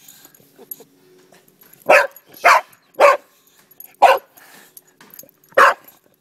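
Boxer dog barking at a crayfish: five short, sharp single barks, spaced unevenly over a few seconds.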